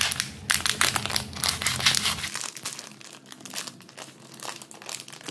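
Thin plastic tofu packaging crinkling and crackling as hands pull it open, in a quick run of crackles that is busiest in the first couple of seconds.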